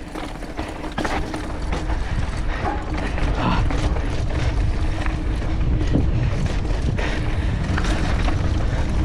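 Mountain bike rolling down a loose dirt trail: steady clicking and rattling from the bike over the rough ground, with tyre noise and a constant low wind rumble on the microphone.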